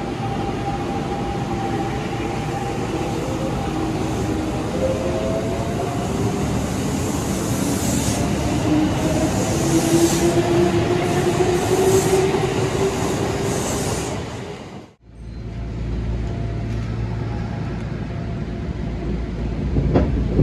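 Kintetsu 1250 series electric train pulling away: its Hitachi GTO-VVVF traction inverter and motors whine in several tones that rise slowly in pitch as the train gathers speed, over growing wheel-on-rail noise. After a sudden cut about 15 seconds in, a low steady rumble.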